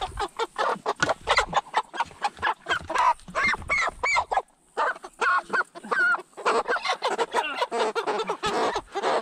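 Cornish Cross meat chickens squawking in alarm, a rapid string of loud calls with a brief lull about halfway through, as they are grabbed and lifted out of their pen.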